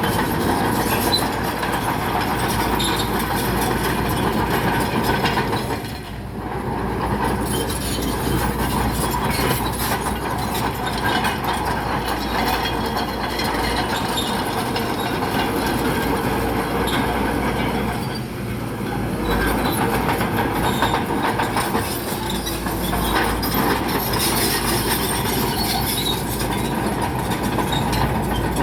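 A bulldozer running with its steel crawler tracks clanking and squealing as it works, a steady mechanical clatter. It eases off briefly twice, about six seconds in and again about eighteen seconds in.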